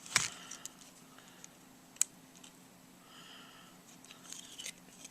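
Small plastic clicks and taps of a disassembled flip phone's parts being handled: a sharp click just after the start, another about two seconds in, and a few lighter ticks later.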